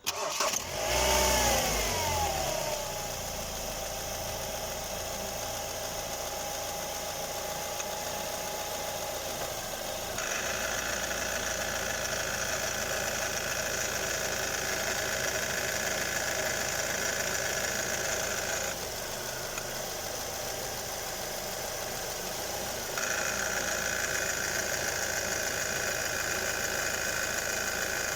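Ford Galaxy 2.3 four-cylinder petrol engine starting and settling to an idle. About ten seconds in a higher whirring noise comes in. It drops out about nineteen seconds in and returns about twenty-three seconds in: this is the drive-belt tensioner noise that the owner hears when a gear is engaged.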